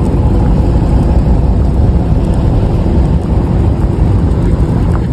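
A car moving slowly through a parking lot: a loud, steady low rumble of engine and road noise.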